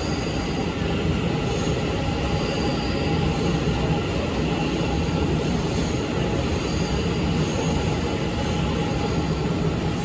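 Passenger train running along the station platform: a steady, loud rumble of wheels on rail, with faint high wheel squeals coming and going.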